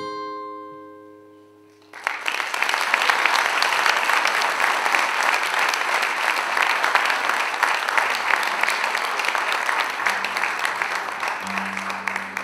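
The last notes of an acoustic-electric guitar ring out and die away. About two seconds in, an audience bursts into applause that runs for about ten seconds and tails off near the end.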